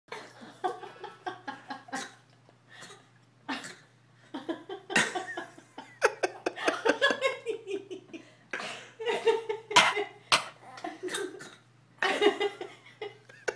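Short coughs, repeated in bursts throughout, with laughter in between: someone coughing and being imitated.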